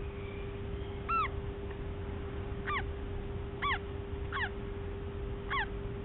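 Eclectus parrot chick peeping from inside its cracked egg as it hatches: five short chirps, each rising and then falling in pitch, about a second apart, over a steady low hum.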